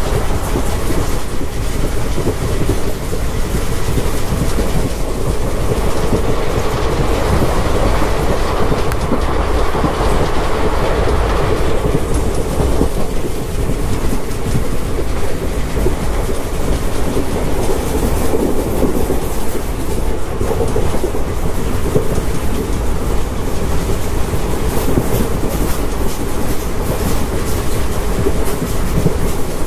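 Indian Railways passenger coach running at speed, heard from aboard: a continuous loud rumble and clatter of wheels on the track, steady throughout.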